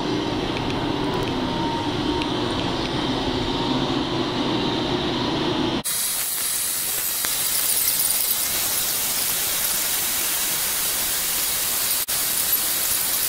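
FMC bench brake lathe running, its twin cutting tips taking a slow fine finishing cut across both faces of a brake rotor. For the first six seconds it is a low hum with a faint steady tone; then it changes abruptly to a high, even hiss.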